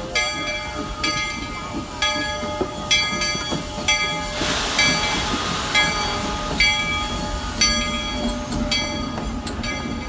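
Bell of narrow-gauge steam locomotive D&RGW No. 340, a C-19 2-8-0, ringing about once a second as the train moves past. About four and a half seconds in, steam hisses for about a second.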